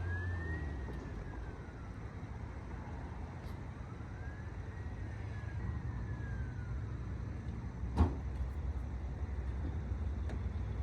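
A faint siren wailing slowly up and down twice over a steady low rumble, with a single sharp click about eight seconds in.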